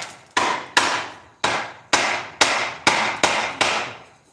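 Repeated sharp knocks on a wooden chair part, about eight blows at roughly two a second, each ringing on briefly in the workshop before the next; they stop just before the end.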